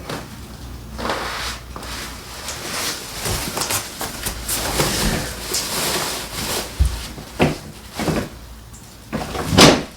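Irregular knocks, clunks and scraping as a large flat-screen TV's mounting brackets are handled and hooked onto a wall-mount bracket, with a sharper, louder knock near the end.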